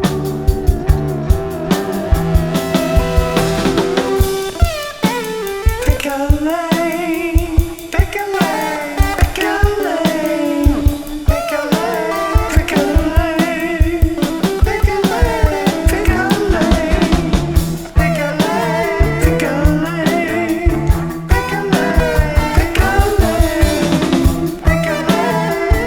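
Music: a song with singing over guitar and a steady drum beat.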